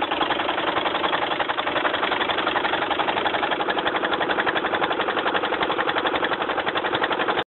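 Small air-cooled single-cylinder stationary diesel engine running steadily, with a fast, even firing beat.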